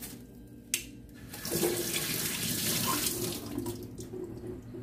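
Water running from a kitchen tap into a stainless-steel sink, starting about a second and a half in after a sharp click.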